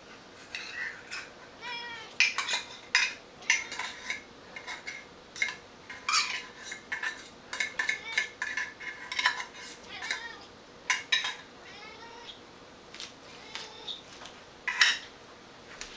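Long-haired domestic cat meowing repeatedly in short calls, begging for the wet cat food being served, over clinks and scrapes of a utensil scooping food from a can onto a plate.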